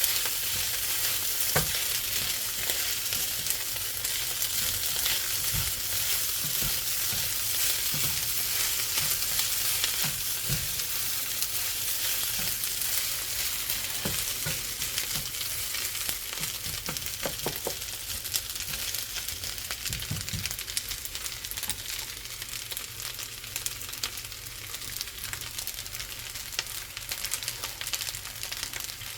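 Vegetable and sausage fried rice sizzling as it is stir-fried in a pan, with a steady hiss and irregular knocks and scrapes from the stirring.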